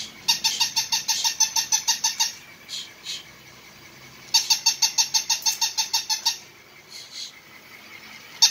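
Battery-operated plush toy puppy's electronic bark sound: runs of rapid, evenly spaced high-pitched yaps, about ten a second. Each run lasts about two seconds, with one at the start, one about halfway through and one starting at the very end.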